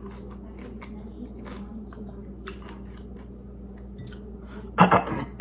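Close-up chewing of crunchy raw broccoli: a run of short, crisp crunching clicks, with a brief loud burst of voice near the end.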